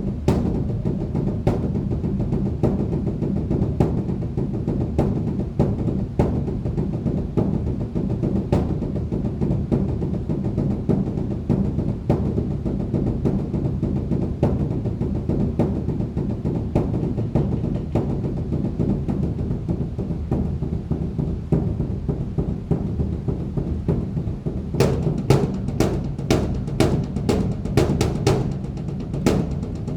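Large Buddhist temple drum (beopgo) beaten with two sticks in a dense, continuous rolling rhythm, with a quick run of sharp clicks near the end.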